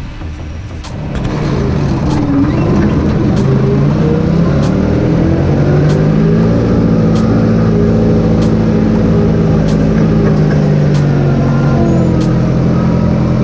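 Forklift engine picking up speed about a second in, then running steadily at raised revs as the forklift drives.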